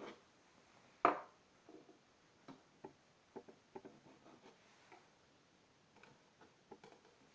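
A dozen or so light knocks and clicks at irregular intervals, the loudest a sharp knock about a second in.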